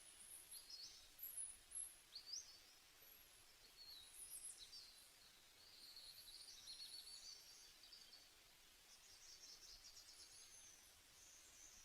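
Faint birdsong: many short, high chirps and quick trills, rising and falling, over a quiet hiss.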